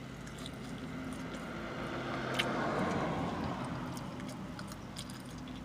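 A vehicle passing, heard from inside a car: its sound swells and fades over about four seconds above a steady low hum, with a single sharp click about two and a half seconds in.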